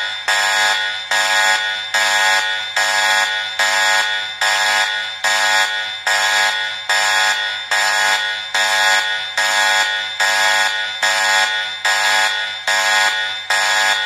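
Emergency alert alarm tone: a buzzy electronic beep, made of several tones at once, repeating at a steady nearly two beeps a second, each beep fading slightly before the next.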